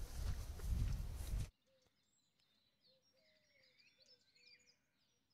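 Wind rumbling on the microphone outdoors, cutting off abruptly about a second and a half in. Then faint songbirds chirping and trilling, with short high calls scattered through the rest.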